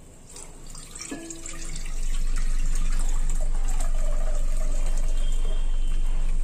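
Lime water poured from a pot through a small mesh tea strainer into a steel bowl, the water falling through the strainer to strain it. The pour builds over the first couple of seconds, then runs steadily.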